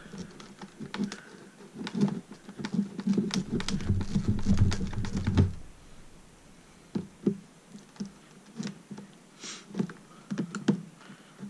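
A small knife scraping, prying and cutting at tough, tightly sealed calculator packaging, with hands handling it. The result is a run of clicks, knocks and low thuds, densest in the first half, followed by scattered single clicks.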